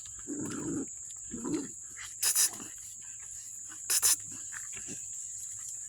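American Bully puppies growling as they play-fight, with two short low growls in the first second and a half. Two sharp, high-pitched noises follow, about two and four seconds in.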